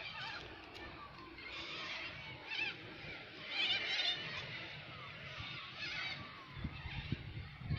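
Birds chirping and calling, several short warbling calls overlapping throughout. A low rumble joins in near the end.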